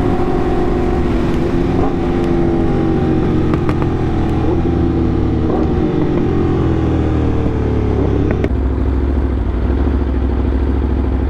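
Aprilia RSV4's V4 engine running under way on MR12 race fuel. Its pitch sags slowly, shifts about five and a half seconds in, and settles to a steadier low note about eight and a half seconds in.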